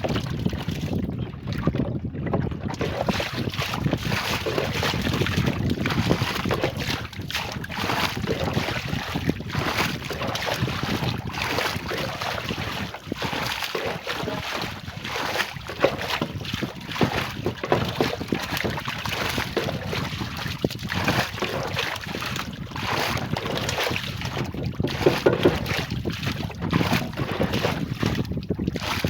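Water splashing and sloshing, irregular and continuous, with wind buffeting the microphone.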